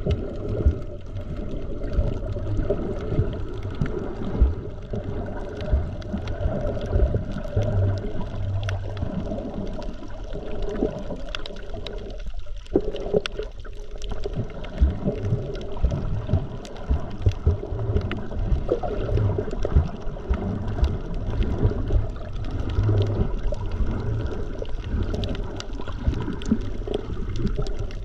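Muffled underwater sound through an action camera's waterproof housing: a steady low rush and gurgle of water, with many small scattered clicks and knocks.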